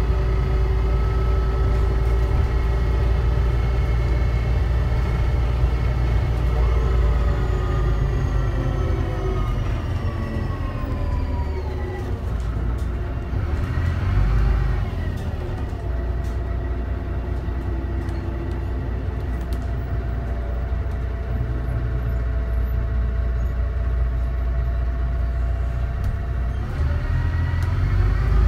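DAF DB250 double-decker bus's diesel engine running under a steady low rumble. Its note holds steady, falls as the bus slows around the middle, dips and picks up briefly, holds steady again, then rises near the end as the bus accelerates.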